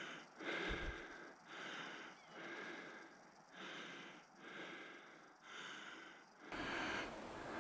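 A man's heavy, laboured breathing, about one breath a second in a steady rhythm: out of breath from climbing a steep trail.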